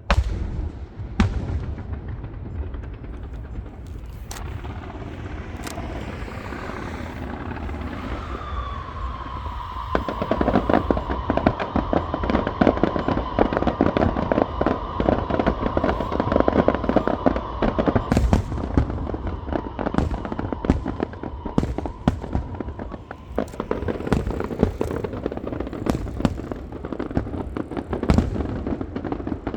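Fireworks going off: sharp bangs of bursting shells, then from about ten seconds in a dense crackling barrage with a steady high whistle over it, easing off near the end.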